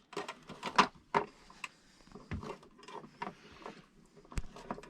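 Irregular small clicks and knocks from hand tools and electrical cable being handled as wire ends are cut and stripped.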